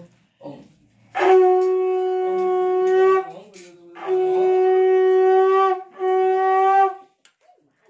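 Conch shell (shankha) blown three times in worship, each blast a steady single note: the first two about two seconds long, the last about one second.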